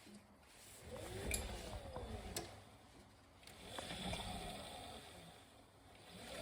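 Beko Aquatech washing machine's inverter motor turning the drum in two short runs, its whine rising and falling in pitch, with a few sharp clicks in between.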